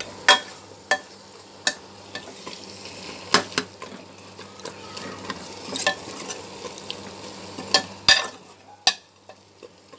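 Metal spoon stirring mutton curry in a pressure cooker pot, clicking and scraping against the pot every second or two over a steady sizzle of the meat and masala frying.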